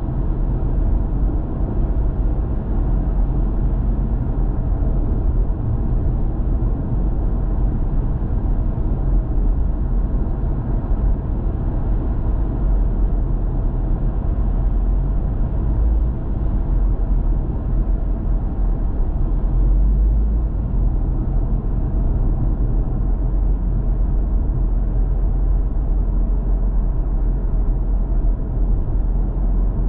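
Steady low rumble of a moving car's road and engine noise, even throughout with no distinct events.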